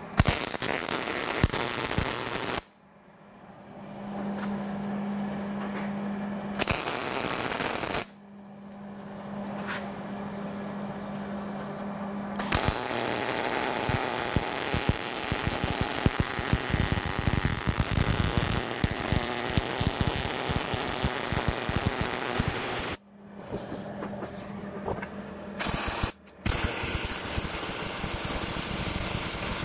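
MIG welder arc running as a steel hinge bracket is welded to a furnace lid. There are two short welds, then one long continuous weld of about ten seconds, then a few short welds near the end, with a low steady hum in the pauses.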